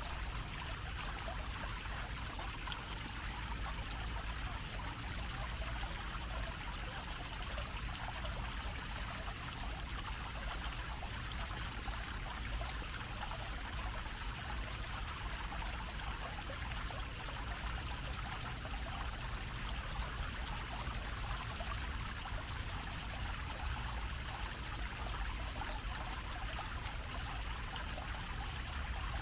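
Bell-shaped fountain jet splashing steadily into its basin, an even rush of falling water, over a steady low rumble.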